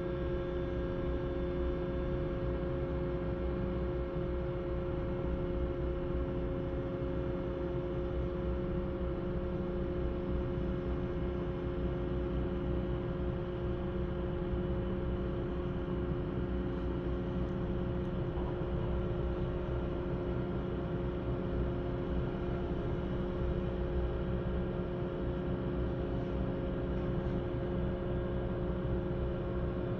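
Steady engine-like drone from a nearby drilling rig: a constant low rumble with several held humming tones, unchanging throughout.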